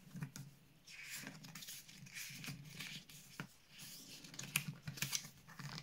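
A folded paper leaflet rustling and crinkling as it is unfolded and handled in the hands, with a few sharp ticks in the second half.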